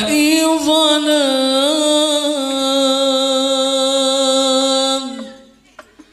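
Solo male voice singing an Islamic sholawat melody into a microphone, unaccompanied: ornamented, wavering runs, then one long held note that breaks off about five seconds in. A short near-quiet pause with a couple of faint taps follows.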